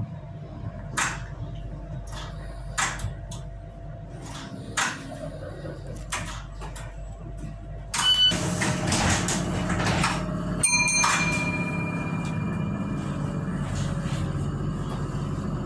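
Tyne and Wear Metro train standing at a station: a few light clicks, then about eight seconds in a short beep and a sudden rush as the sliding doors work. Near eleven seconds come steady warning tones lasting a couple of seconds, over the train's steady hum.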